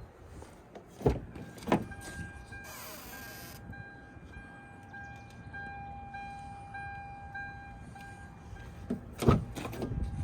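Car door and cabin sounds: two heavy thumps, then a steady electronic chime tone that pulses on and off, with another cluster of thumps near the end.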